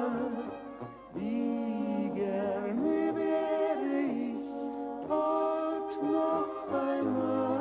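A man's and a woman's voices singing a slow German folk song (Volksmusik) as a duet.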